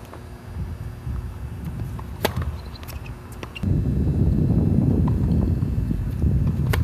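Wind buffeting the phone's microphone, a loud low rumble that sets in about halfway through. Before it come a few sharp knocks of a tennis ball being bounced on the hard court, and near the end the crack of a racket striking the serve.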